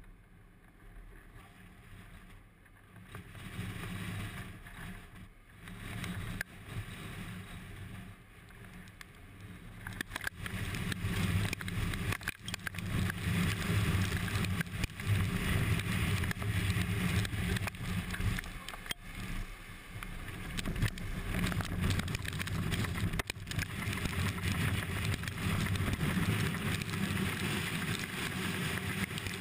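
Strong wind rushing and buffeting with a low rumble, rising steadily over the first ten seconds or so and then staying loud: the winds close to a large tornado.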